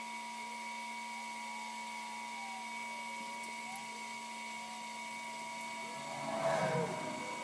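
A steady electrical hum with a constant high whine over it, and a brief louder muffled noise about six seconds in.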